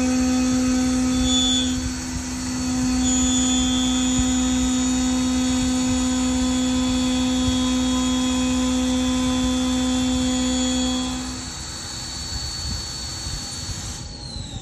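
End mill in a Milltronics TRM 3016 CNC mill side-milling the edge of a cast iron fixture plate, giving a loud, steady pitched cutting whine that dips briefly about two seconds in. The whine stops about eleven seconds in, and a falling whine starts just before the end.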